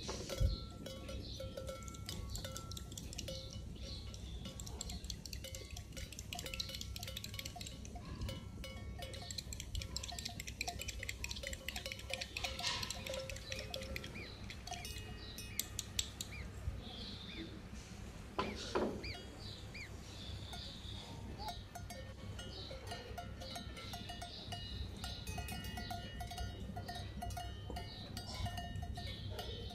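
A tiny spoon beating egg in a small glass bowl, clinking and ringing against the glass in quick runs, with a few louder knocks.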